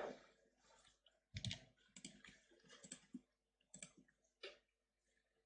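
Faint clicks of a computer keyboard and mouse, a handful of short taps scattered over several seconds.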